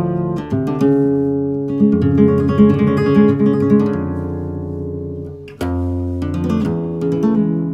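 Solo flamenco guitar playing the tremolo passage of a rondeña: quickly repeated treble notes over a moving bass line. About five and a half seconds in, the ringing fades away and a fresh, sharply plucked bass note and chord start the next phrase.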